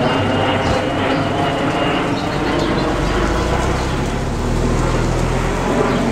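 Audi sedan's engine pulling away from the curb and accelerating down the street, with a deep exhaust drone building from about two seconds in.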